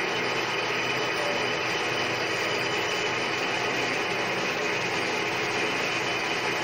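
Centre lathe running steadily, the chuck spinning a metal bar while the tool cuts a curved groove into it, taking the diameter down toward 15 mm.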